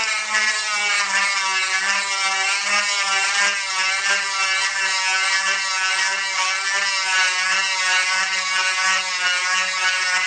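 Dremel rotary tool running continuously while its grinding bit bores out the inside of a hard plastic throttle tube. Its high whine wavers up and down in pitch as the bit bears on the plastic.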